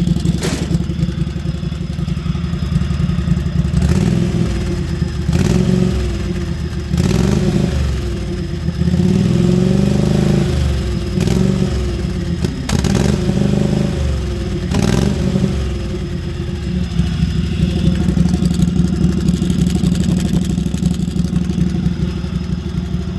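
Lawn mower engine running loud through a truck exhaust pipe fitted to it. It is revved up and down several times through the middle, then settles back to a steady run. A few sharp clanks can be heard along the way.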